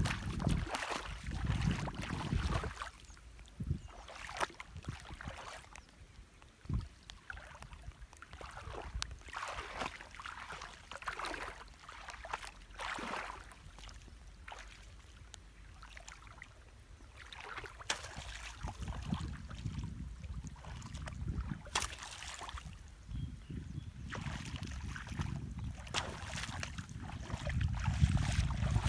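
Irregular water splashing and sloshing, with low wind rumble on the microphone near the start and again in the last third.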